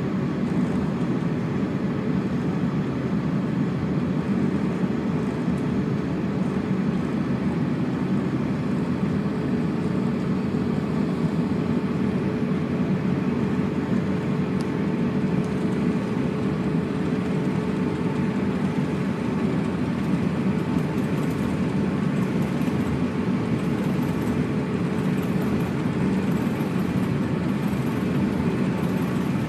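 Steady cabin hum inside an Airbus A350-900 on the ground before takeoff, its Rolls-Royce Trent XWB engines at idle, with a faint steady whine held above the low rumble.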